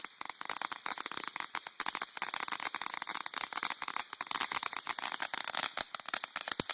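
A lit firework crackling, many sharp little pops over a spraying hiss.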